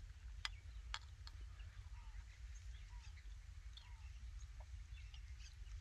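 Quiet outdoor ambience with a few faint, short, falling bird calls over a low steady rumble. A couple of light sharp clicks, about half a second and a second in, come from a metal spoon against a clay bowl.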